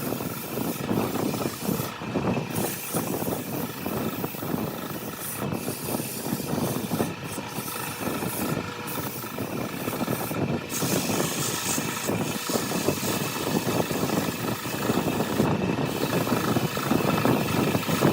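Wood lathe running steadily with a turning tool scraping and cutting the spinning wood, a continuous rough noise.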